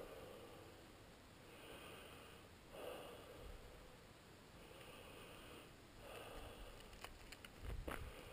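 Dog sniffing at the ground in faint, short bursts every second or two, with a couple of soft knocks near the end.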